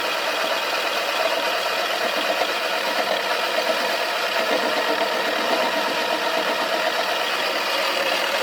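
Toy washing machine's small motor running steadily on a spin, with a detergent dispenser ball tumbling and rattling in the drum.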